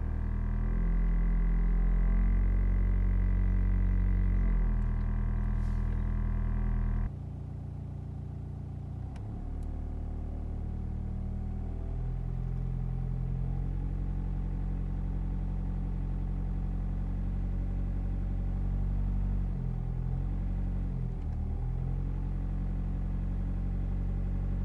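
Volkswagen Passat B5 engine idling, heard from inside the cabin as a steady hum. For about the first seven seconds a higher buzz from the vibrating dashboard trim rides over it, then stops suddenly, leaving the lower idle hum with the trim removed.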